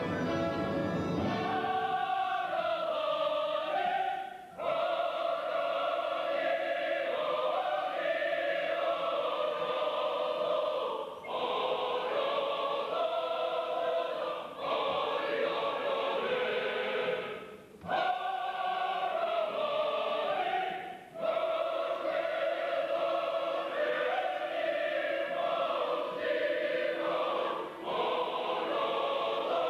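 Large opera chorus singing in long phrases, with brief breaks between them. The first second or so is the end of an orchestral passage.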